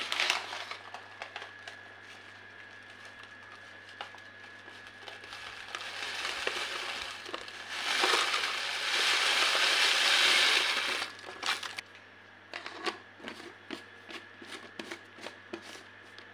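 Paper crinkling and a dry, crunchy mixture namkeen of fried poha, peanuts and dals pouring off a paper sheet into a plastic jar, loudest for about three seconds in the middle. Light taps and clicks near the end as the jar is handled.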